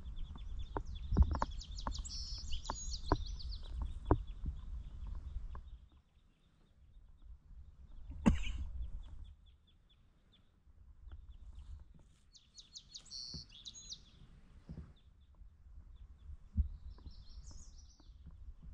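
A songbird singing a short, complex phrase three times, about two, thirteen and seventeen seconds in. Under it a low rumble, with scattered short knocks through the first six seconds and a single louder knock about eight seconds in.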